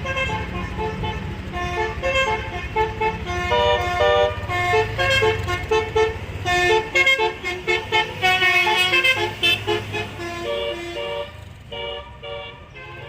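Six-note bus telolet horn playing a quick tune of short pitched notes over the bus engine's low running rumble. The notes grow fainter and sparser near the end.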